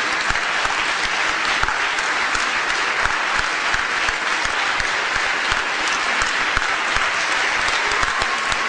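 Large audience applauding steadily, a dense clatter of many hands clapping, greeting a speaker who has just been introduced.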